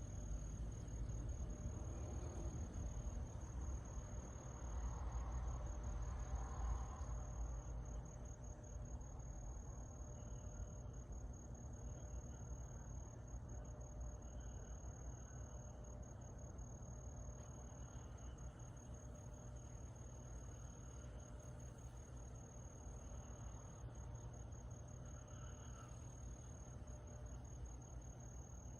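Summer-night insects calling: one continuous high, steady trill, with fainter, lower-pitched chirps coming and going over it. A low rumble swells for a few seconds near the start.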